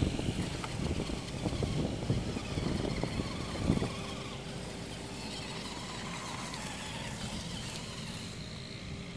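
Redcat Rockslide RS electric RC crawler scrabbling against tree bark and dry leaves, with a run of irregular knocks. About four seconds in comes a sharp thud as the truck tumbles off the trunk onto the ground. After that there is a steadier, quieter hum.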